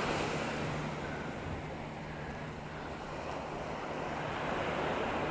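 Ocean surf washing on the shore, with wind on the microphone; the wash fades over the first couple of seconds and then slowly builds again.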